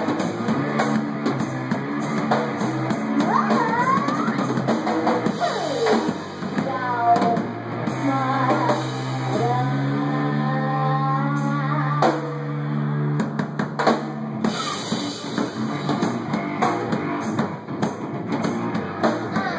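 A live rock band playing electric guitar and drum kit, with notes gliding up and down in pitch and a long held low note about halfway through.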